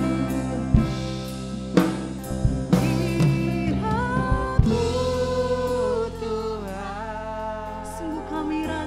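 Worship band music: drum kit hits over held chords, with the drums stopping about four and a half seconds in, then a singing voice carrying a slow melody over the sustained chords.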